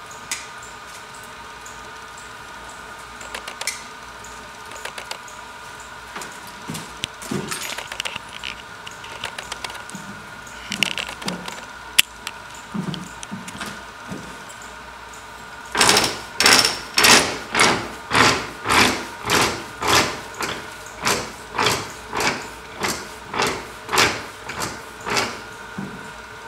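Wool weaving loom starting to run about two-thirds of the way through, clacking in a steady rhythm of about two strokes a second as it weaves. Before that, scattered small clicks and knocks from the loom over a steady high hum.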